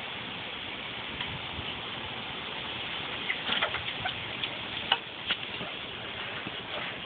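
Quail in a coop stirring, a run of small sharp clicks and ticks from about three to five and a half seconds in, over a steady hiss.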